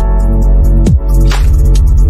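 Background music with a deep bass and drum hits, including a short falling bass note about a second in.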